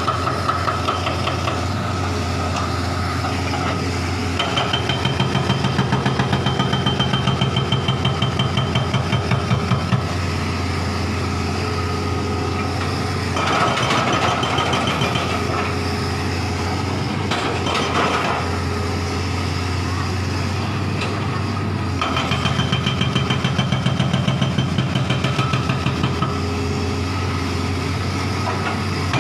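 Hitachi hydraulic excavator's diesel engine running steadily while its hydraulic breaker hammers at demolition rubble in two long spells of rapid, even blows, one about four seconds in and one from the last third onward.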